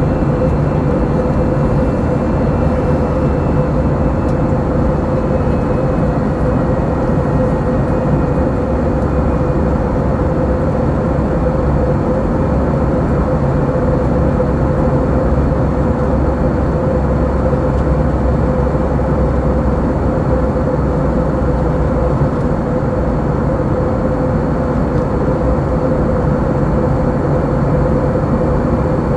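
Steady engine and airflow noise inside the cabin of an Airbus A321-200, with a constant droning tone running through it.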